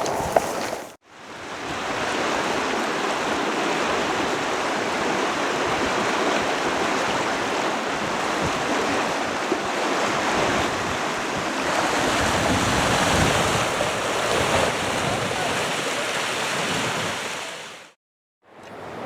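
River water rushing, a steady even rush that fades in about a second in and fades out near the end.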